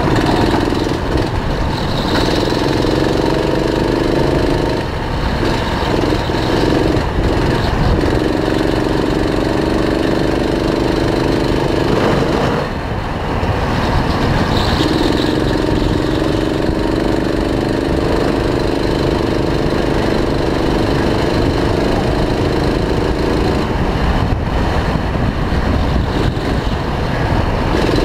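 Go-kart engine heard on board at speed, its note held steady for several seconds at a time and dropping away between those stretches, three times in all. A constant rush of wind and track noise runs under it.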